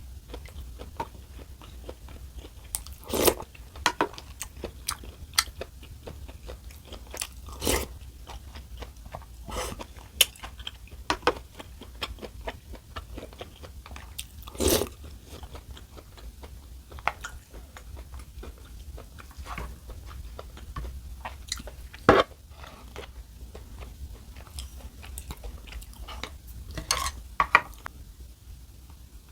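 Close-miked eating: chewing and crunching, with irregular small clicks and a few sharper, louder clicks spread through, over a steady low hum.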